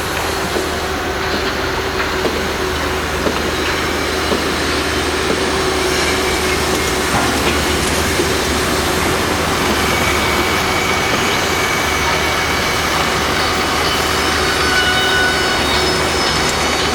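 Construction-site machinery noise: a loud, steady mechanical rumble, with thin high whines coming and going over it.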